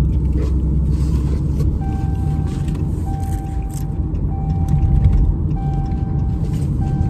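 Low, steady rumble of a car idling, heard inside the cabin. From about two seconds in, an electronic tone repeats in beeps about a second long with short gaps between them.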